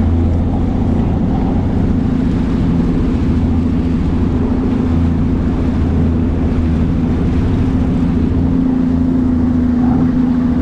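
Bass boat's outboard motor running steadily as the boat travels, with a constant low drone and a steady higher hum over the rush of wind and water.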